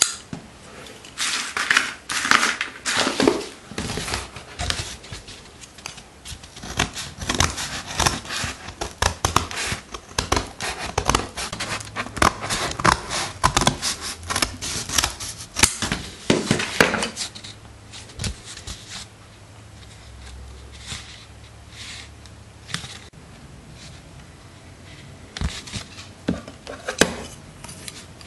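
Scissors snipping repeatedly through a sheet of card, cutting out a curved shape. The snips come fast and irregular at first, then thin out after about two-thirds of the way through, with a few more near the end.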